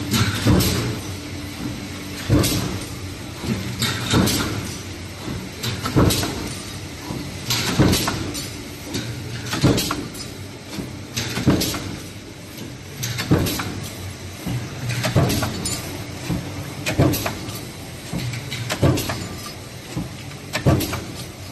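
JH21 C-frame power press running continuously with a progressive die, stamping metal parts from coil strip: a heavy clank about every two seconds over a steady machine hum, with lighter clicks between strokes.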